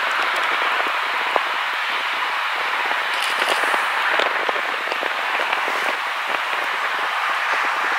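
Antonov An-124's four Progress D-18T turbofan engines at takeoff thrust during the takeoff roll: a steady rushing jet noise full of fine crackling.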